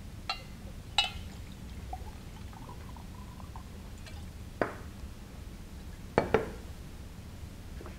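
Glassware being handled on a lab bench: a glass flask and beaker clinking in a few separate sharp taps, the loudest about a second in and just after six seconds.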